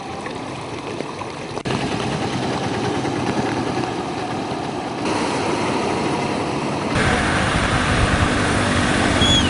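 Rushing floodwater: a steady noisy rush that changes abruptly as the shots cut, about two, five and seven seconds in, with a heavier low rumble, possibly wind on the microphone, in the last couple of seconds.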